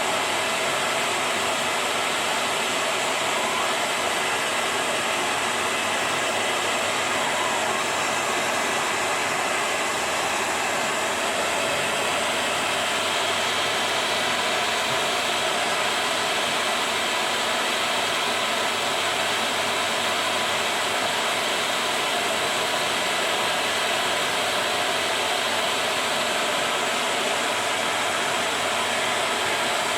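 Hair dryer blowing steadily, a constant even rush of air, used as a heat source to shrink a plastic bottle sleeve onto a juicer part.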